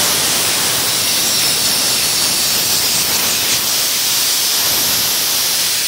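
Loud, steady hiss of compressed air from a shop air hose at a golf cart tire's valve stem.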